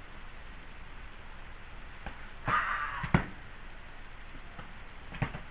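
Padded LARP weapons in sparring: a short swishing rush about two and a half seconds in, then one sharp knock of a hit, with a few faint taps around it.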